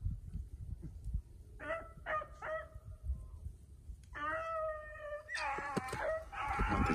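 Beagles baying while running a rabbit: three short yelps, then a longer drawn-out bawl about four seconds in, and several hounds giving tongue together near the end.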